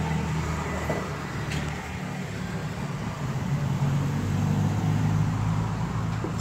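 Street traffic: vehicle engines running close by, a steady low hum that grows louder about halfway through.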